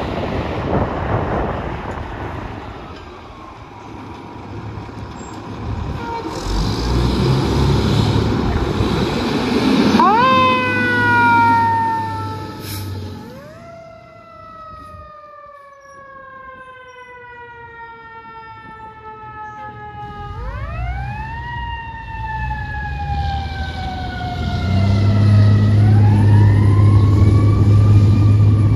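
Fire department aerial ladder truck leaving on a run: its diesel engine runs under load, then its siren is wound up four times, each wail climbing quickly and falling slowly in pitch. The engine grows loud near the end as the truck passes close.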